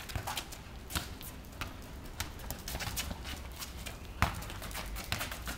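A football being kicked on an asphalt court, with irregular knocks and scuffs of running feet and a red-nose pit bull's paws as the dog chases the ball. The loudest is a single sharp thump about four seconds in.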